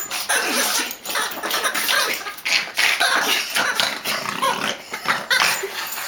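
A Boston terrier making excited vocal noises in short, irregular bursts while it plays at a toy chicken.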